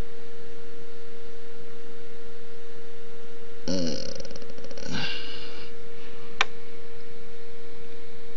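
A steady mid-pitched hum, with two short breathy, snort-like sounds about four and five seconds in and a single sharp click shortly after.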